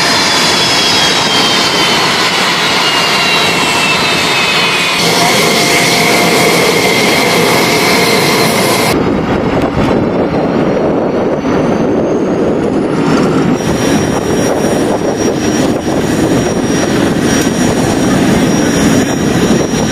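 F-16 jet engine noise on a flight line: a loud, steady rush with a high whine that slides down in pitch over the first few seconds. The sound changes abruptly twice, and in the second half a steady high whine sits over the rush.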